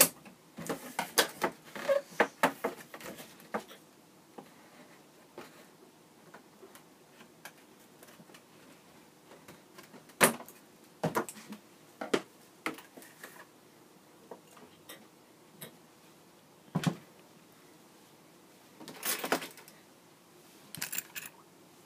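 A cardboard box being handled and opened by hand: a quick run of knocks and taps in the first few seconds, a few sharper single knocks around the middle, and brief scraping rustles near the end.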